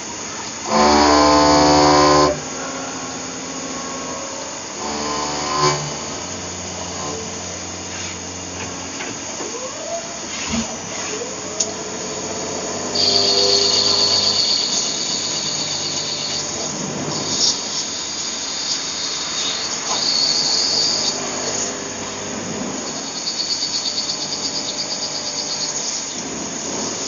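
CNC lathe running a turning cycle: steady machine tones that step in pitch and level as the spindle and axes change, with a loud tone about a second in and stretches of high hissing.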